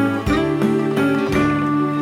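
Background music: plucked guitar notes with a steady beat.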